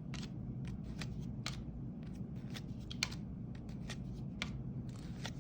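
2022-23 Panini NBA Hoops trading cards being flipped and slid one by one through a stack in the hand: irregular light card clicks and rustles, over a faint steady low hum.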